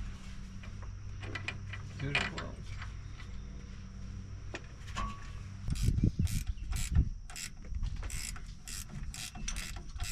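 Hand ratchet wrench clicking in short strokes with metal clinks, as bolts are run in under the truck, over a steady low hum.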